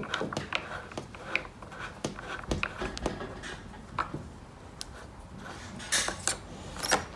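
Light scattered clicks and rubbing as hands twist the front brass adapter off a Resi PD drill's aluminium housing, with a louder scrape or two about six seconds in.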